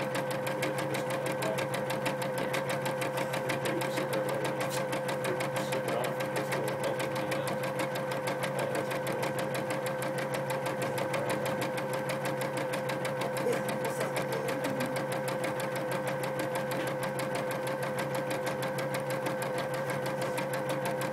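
Computerized embroidery machine stitching steadily: the needle runs up and down at a fast, even rate over a steady motor tone.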